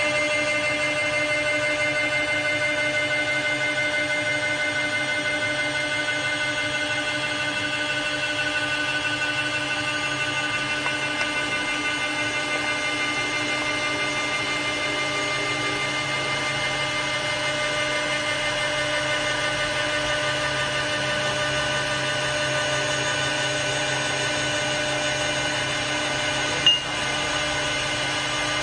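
Single-spindle CNC wood lathe milling a wooden billiard cue blank: a steady whine from the cutting spindle over the noise of wood being cut. One brief sharp knock near the end.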